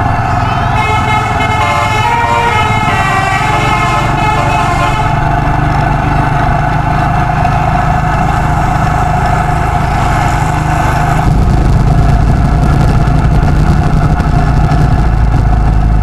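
Bus's musical 'telolet' air horn playing a short run of stepped notes in the first few seconds, over steady road and wind rumble that grows louder about eleven seconds in.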